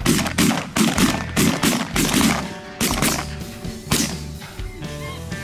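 A rapid volley of shotgun shots from several goose hunters firing together, about ten shots in the first four seconds, over background music.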